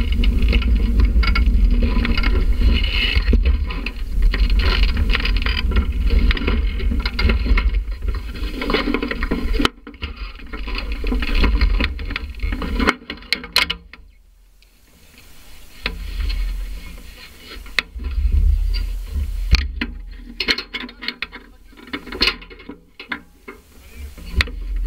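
Loud noisy rumble with clatter picked up by a camera mounted on a soapbox car, as wind or the car's movement buffets the microphone. It drops off sharply about ten seconds in, leaving quieter patches broken by scattered knocks and clicks.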